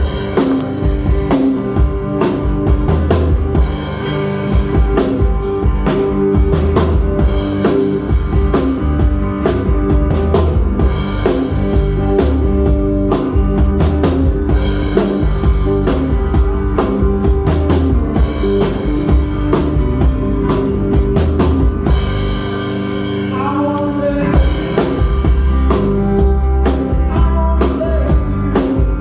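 Live rock band playing: a drum kit keeps a steady beat of kick and cymbal hits under guitars and bass guitar, with some bending guitar notes about two-thirds of the way through.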